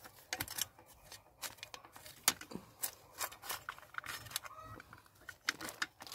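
Small metal hand trowel scraping and scooping damp, clumpy soil into a black plastic nursery bag, with irregular scrapes and sharp taps as the soil is packed in.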